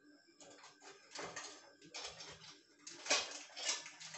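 Mustard seeds in hot groundnut oil in a kadai starting to crackle and sizzle, in irregular bursts that come every second or so and grow louder near the end. This is the tempering stage: the oil is hot enough for the seeds to begin popping.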